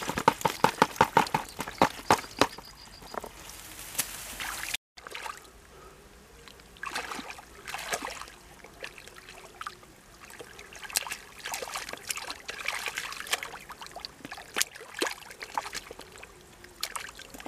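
Muddy water dripping and pattering from a tipped woven basket into a plastic bucket, with rapid splashes for the first few seconds. After a break, quieter, irregular sloshing and splashing of hands working through shallow muddy water.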